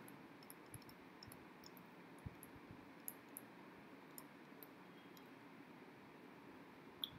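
Near silence: faint room hiss with scattered light clicks of a stylus tapping on a pen tablet while writing, one a little louder near the end.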